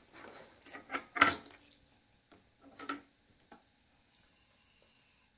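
Takeout boxes, paper and foam, being handled on a table: rustling and a few knocks, the sharpest about a second in and another near three seconds.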